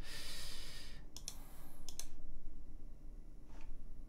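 Computer mouse clicking: a soft hiss in the first second, then a quick pair of sharp clicks about a second in, another near two seconds and a faint one near the end.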